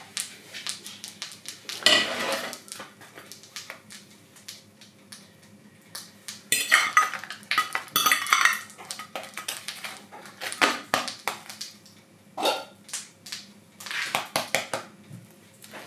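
Clinks and scrapes of a metal fork against a ceramic plate as a waffle is handled on it, in scattered bursts. There is a louder stretch of clattering near the middle and another near the end.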